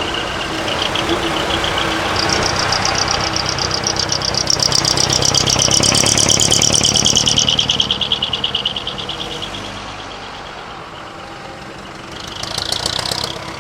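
Decorated truck's diesel engine running loud through its exhaust as the truck drives past. The sound rises to a peak about six to seven seconds in, drops off, and then gives a short burst of revving near the end.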